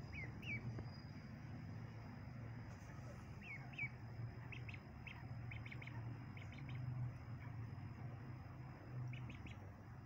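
Ducklings peeping: a few short downward-sliding peeps, then quick runs of brief high peeps, over a low steady hum.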